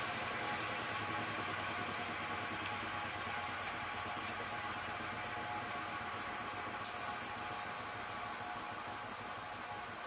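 Homemade single-speed metal lathe running steadily while milling thick steel plate, its motor and drive giving a constant whine with faint ticks and one sharper click near the middle.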